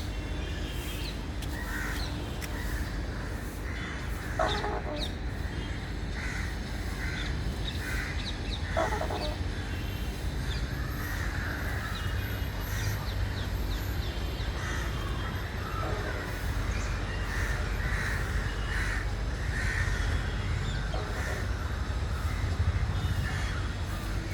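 Birds calling in an aviary: scattered short harsh calls and higher chirps, a couple of louder ones about four and nine seconds in, over a steady low rumble.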